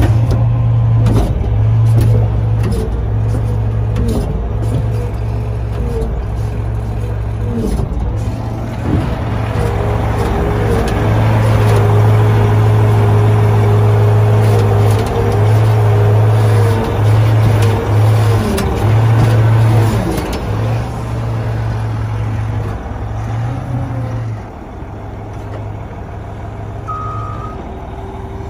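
Cat 980K wheel loader's diesel engine idling steadily, a low hum with a fainter whine above it, growing somewhat quieter near the end.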